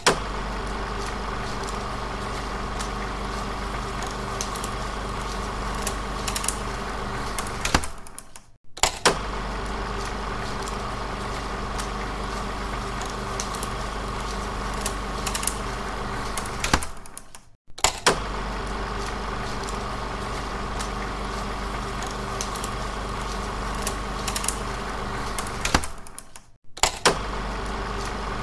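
16mm film projector sound effect: a steady mechanical running whir with a low hum. Every nine seconds or so it drops out for a moment and starts again with a click, as the sound loops.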